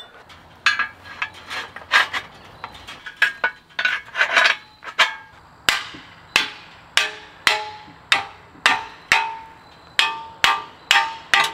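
A hammer striking repeatedly, about twenty blows, each with a short ring. The blows come unevenly at first, then settle into a steady stroke about every two-thirds of a second.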